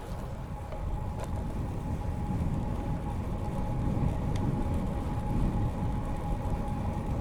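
Steady low rumble of riding a road bike on a paved path: tyre and wind noise, growing louder from about a second in, with a faint steady whine and a few light clicks.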